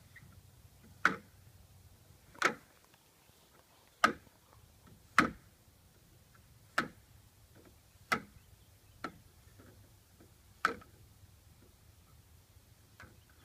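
Large beads on a playground abacus being pushed along their bars by a small child, clacking against one another in about nine separate, irregularly spaced knocks, roughly one every second or so.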